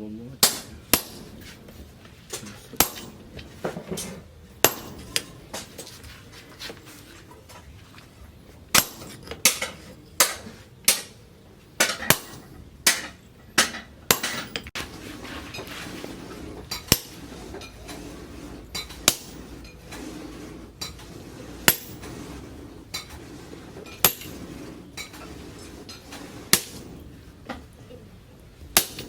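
Blacksmith's hammer striking hot leaf-spring steel on an anvil, irregular blows about one a second, each with a short metallic ring.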